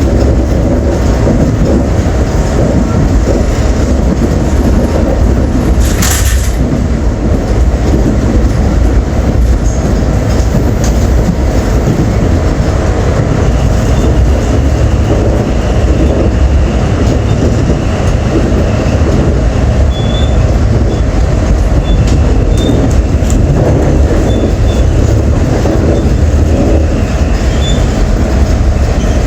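Subway train running on the rails, heard from inside the car: a steady loud rumble of wheels and track. There is a brief sharp noise about six seconds in, and a faint high squeal of the wheels comes and goes in the second half.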